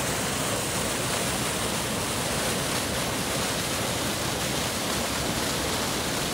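Small waterfall on a mountain brook, whitewater pouring over rock ledges into a pool: a steady, unbroken rush of water.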